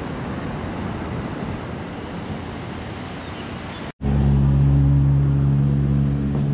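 Rushing water of a shallow, rocky river, a steady hiss. About four seconds in it cuts off sharply to a louder, steady low mechanical hum of several held tones.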